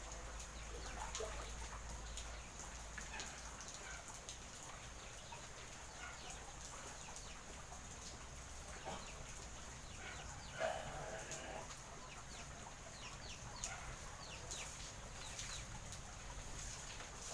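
Steady light rain hiss with scattered drips, and faint bird calls, typical of domestic fowl clucking, with one louder call about ten seconds in.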